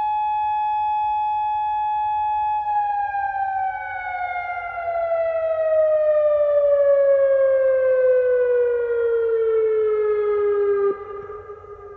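Outdoor civil defence siren sounding a tsunami warning. It holds one steady tone, then falls slowly and smoothly in pitch, and drops sharply in loudness about eleven seconds in.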